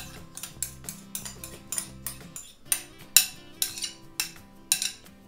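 A metal spoon scraping and knocking against a bowl to get out blended courgette pulp: a quick, uneven series of clinks and scrapes, the sharpest ones in the second half.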